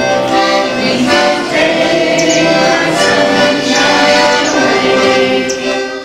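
Button box accordion playing a tune in full, held chords.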